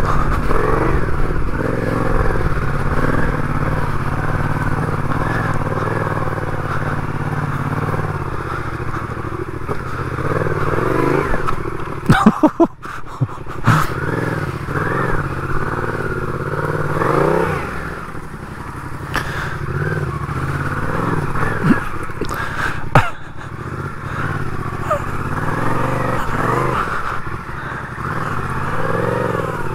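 Motorcycle engine climbing a steep dirt hill, its note rising and falling as the throttle works. Sharp knocks and clatter come about twelve seconds in and again near twenty-three seconds.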